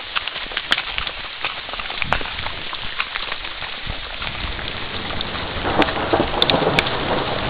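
Rain falling steadily, with many short sharp ticks of drops striking close by; it grows a little louder near the end.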